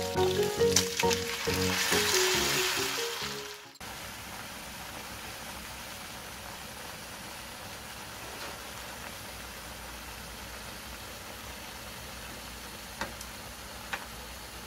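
Soy-sauce seasoning hits a hot pan of seared pork belly and onions and sizzles loudly under background music. The music stops just under four seconds in, leaving the steady hiss of the sauce simmering, with two light clicks of metal tongs against the pan near the end.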